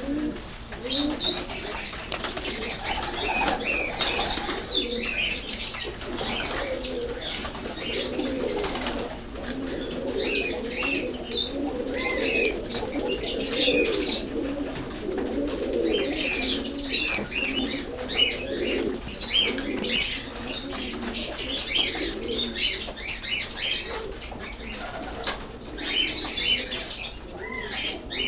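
A flock of Iraqi pigeons in a loft cooing continuously, many birds overlapping, with occasional wing flaps and high chirping calls over the cooing.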